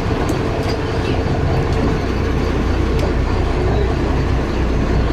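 Charter fishing boat's engine running steadily with a low rumble, under a haze of wind and water noise, with a few faint clicks.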